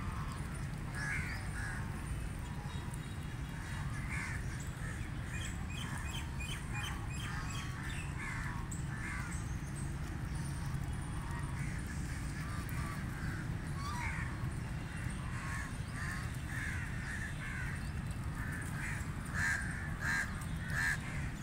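Flock of domestic ducks and geese calling: many short, harsh quacks overlapping one another, growing louder near the end, over a steady low rumble.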